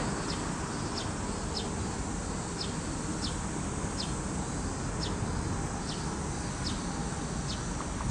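Short, high chirps repeating somewhat under twice a second over a steady outdoor background rumble, typical of an insect calling.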